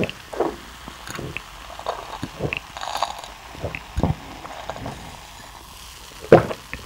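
Close-miked gulping: a person swallowing a drink from a glass in a string of separate gulps, the loudest at the start and again near the end.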